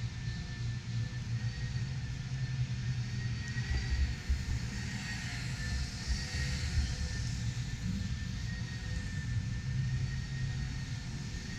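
Steady rumble and hum of a large exhibition hall, with a faint hiss and thin steady tones over it and no distinct events.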